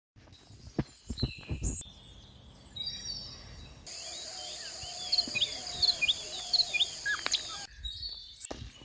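Birds chirping and calling in short bursts of rising and falling notes, spliced together from separate clips with sudden cuts. In the middle stretch a steady high hiss sits under the chirps, and a few low knocks come in the first two seconds.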